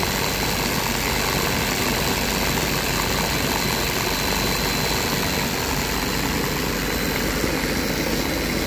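Carburetted eight-cylinder petrol engine of a mini bus running steadily, back in life after standing unused for about ten years.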